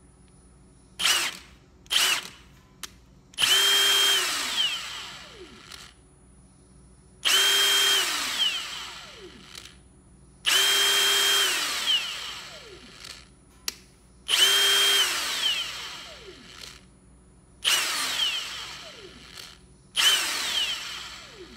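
Milwaukee M18 FUEL mid-torque impact wrench (2861-20) spinning free with no load: two quick trigger blips, then six longer pulls, each a steady whine that winds down slowly in pitch after the trigger is let go instead of stopping at once. The anvil only spins in one direction and the electric brake that should stop it on trigger release has failed, so the motor coasts to a stop.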